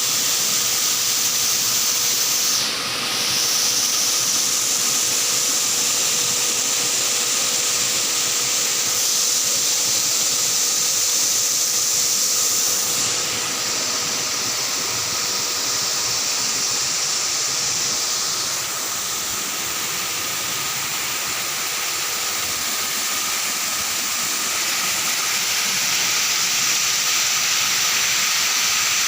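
Cold-storage air-conditioning compressor unit running: a steady, loud hiss with a faint steady hum beneath it, the hiss shifting slightly in level a few times.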